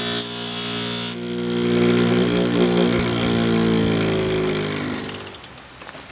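An electric grinder's abrasive wheel grinds a coil-spring steel knife blade with a loud hiss, which stops about a second in as the blade comes off the wheel. The motor hums on, then winds down with falling pitch and goes quiet about five seconds in.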